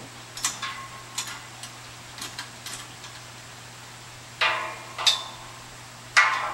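Irregular metallic taps and clanks, about eight light ones in the first three seconds and then a few louder, ringing clangs in the last two seconds, as of metal framing parts being struck or knocked together.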